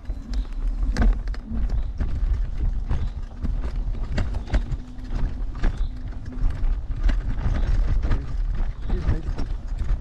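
Heavy electric scooter jolting over a rough dirt forest road: a continuous low rumble with irregular knocks and rattles as the scooter shakes over the bumps.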